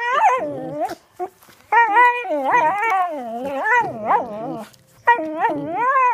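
A dog making long, wavering, howl-like growls in three stretches, the pitch rising and falling throughout, with short breaks about a second in and just before five seconds.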